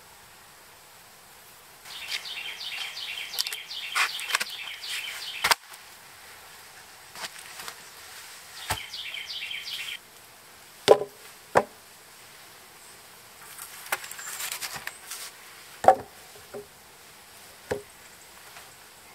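Wooden poles knocked against each other and against the ground as they are laid down, a few sharp separate knocks in the second half. Earlier, two stretches of a rapid high-pitched chattering.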